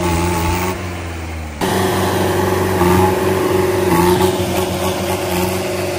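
Modified Mahindra 575 tractor's diesel engine running steadily as it is driven slowly. The sound changes abruptly about a second and a half in.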